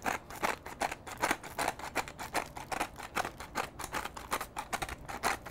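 Hand-held pepper mill grinding black pepper: a rapid, even run of dry crunching clicks, several a second, as the mill is twisted back and forth.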